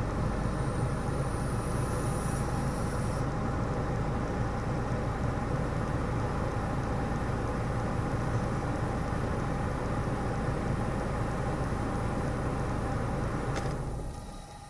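2011 Citroën C5's air conditioning system running with a steady whooshing noise over a low hum, the noise of a system low on refrigerant. It dies away near the end.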